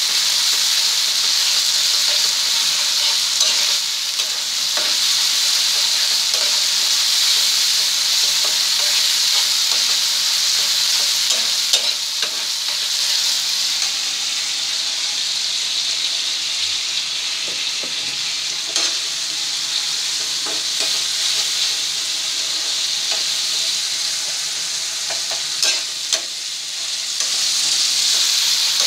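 Chopped onion and tomato sizzling in hot oil in a frying pan, with a spatula stirring and now and then clicking and scraping against the pan. The sizzle eases a little in the middle and comes back stronger near the end.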